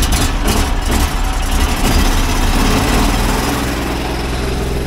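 Engine of a van-mounted sewer jetter running just after starting, driving its high-pressure water pump for jetting a blocked drain. A steady engine drone, busiest in the first three seconds, then settling a little lower and quieter.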